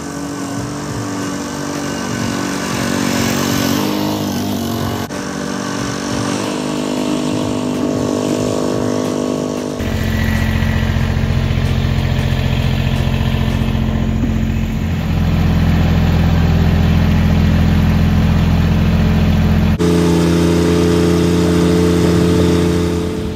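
Engines running across several short clips: a Toro Greensmaster walk-behind reel mower running as it cuts low grass, then a compact tractor's engine running steadily close by. The tractor engine is louder and deeper and takes over about ten seconds in.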